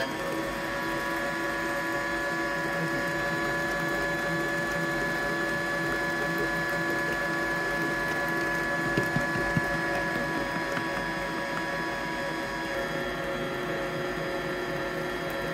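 Electric stand mixer with a centre-drive beater running steadily, a motor whine with several held pitches that settles to speed at the start, as it beats flour into thick cake batter.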